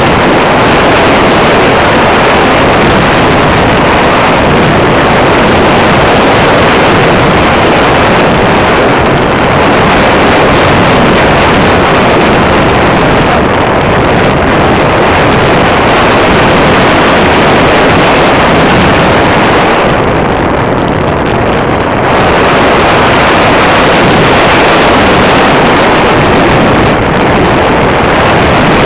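Loud, steady rushing of airflow and motor noise picked up by a small onboard camera on a radio-controlled model airplane in flight. It eases briefly about twenty seconds in.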